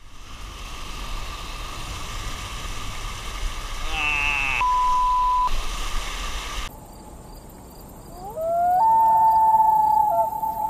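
Rushing whitewater for the first several seconds, with a brief steady tone in the middle. Then the sound cuts to a long howling animal call that rises at its start and then holds its pitch, stepping down near the end.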